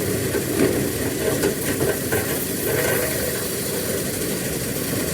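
Duct-cleaning machine running steadily: an even rush of moving air over a low motor rumble.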